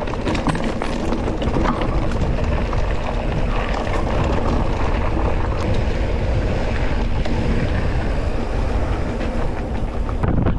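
E-mountain bike coasting downhill: steady wind noise on the microphone with tyre rumble and a dense clatter of small knocks and rattles from the bike.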